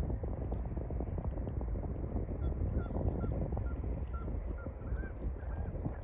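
Water birds calling in a string of short, repeated calls, about two a second, starting about two seconds in, over a steady rumble of wind on the microphone.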